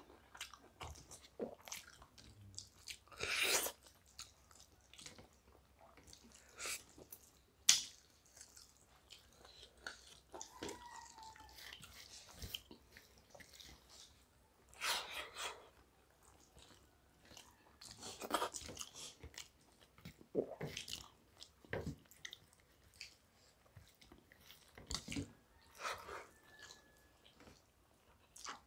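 Two people eating rice and curry with their hands: chewing, with fingers mixing and scooping rice on steel plates, in irregular short bursts.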